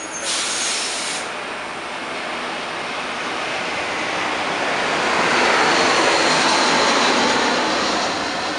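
Tangara double-deck electric train at the platform: a short sharp hiss near the start, then a steady whooshing noise that swells to its loudest about two thirds of the way through and eases near the end.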